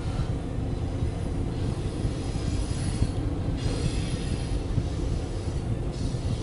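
Double-stack intermodal freight cars rolling past: a steady low rumble of steel wheels on rail, with a high-pitched wheel squeal that comes and goes about three times.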